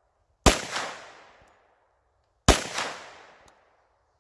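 Two shots from a Glock 10mm pistol, about two seconds apart, each a sharp crack followed by an echo that dies away over about a second.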